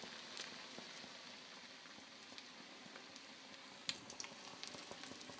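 Eggs frying in a pan, a faint steady sizzle with small crackles and one sharper pop about four seconds in.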